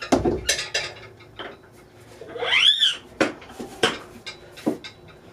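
A series of sharp clinks and knocks, like hard objects being handled, with a short squeak about two and a half seconds in that rises and then falls.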